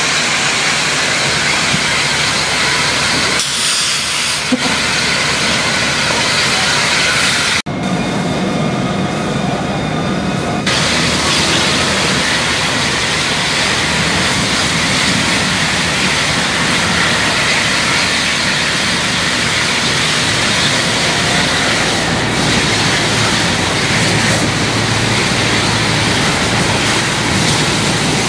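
Steady, loud hissing rush of a burning outdoor kitchen being hosed down with a fire hose. For about three seconds after a break about eight seconds in, a steady high squeal sits over the hiss: LPG bottles venting after their safety valves have popped.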